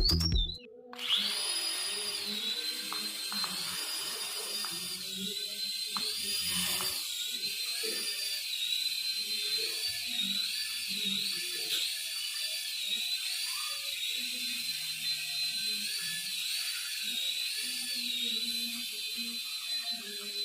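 Small high-speed electric motor of a homemade toy helicopter whining, starting about a second in; its pitch dips and recovers again and again, more often in the second half, as the motor's speed changes.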